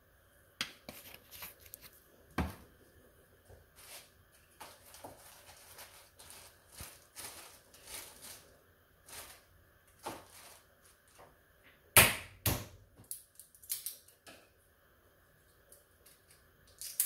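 Scattered light clicks, taps and rustles of kitchen items being handled, with a sharp knock about two and a half seconds in and two loud sharp knocks about twelve seconds in.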